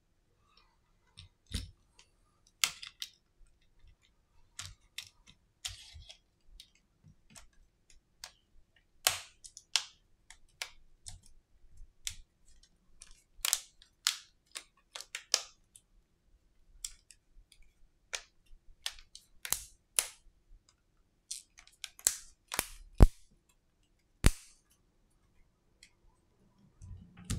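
Inner frame of a Redmi Note 10 5G being pressed onto the phone body: irregular sharp clicks and snaps as its clips seat, with the two sharpest snaps near the end.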